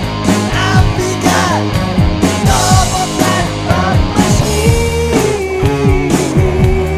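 Rock music with a steady drum beat, guitar and a melody line that holds one long note through the second half.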